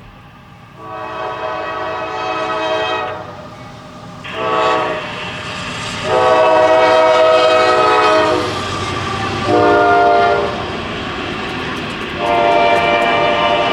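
Locomotive air horn sounding a sequence of long and short blasts, five in all, the last still going at the end, with a passing train rumbling underneath.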